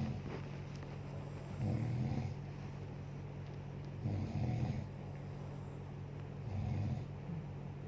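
A sleeping woman snoring: four rough snores about two and a half seconds apart, in the rhythm of her breathing, over a steady low hum.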